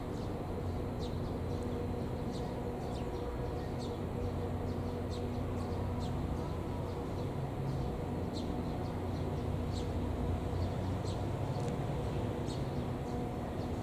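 Wild birds calling in short, high, downward-slurred chirps, repeated irregularly many times, over a steady low rumble and hum.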